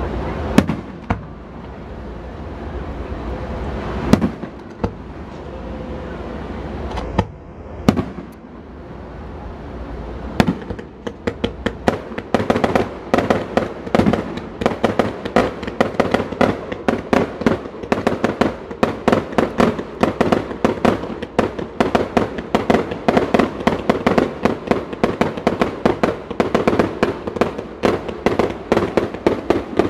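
Aerial fireworks display: a few separate shell bursts, then, about a third of the way in, a rapid barrage of overlapping bangs that keeps on to the end.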